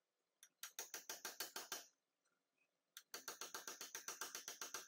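Hand ratchet clicking quickly as nuts are tightened, in two runs of about a second and a second and a half, some eight or nine clicks a second.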